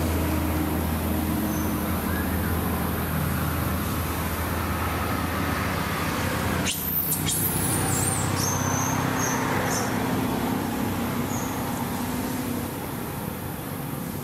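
A steady low motor hum under a noisy background, with a sudden clatter about halfway through followed by a few seconds of high-pitched squeaks.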